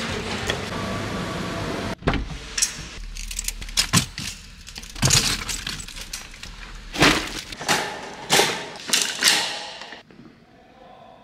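About two seconds of steady store noise, then a string of sharp metallic clatters and knocks from a shopping trolley and groceries being handled, which die down near the end.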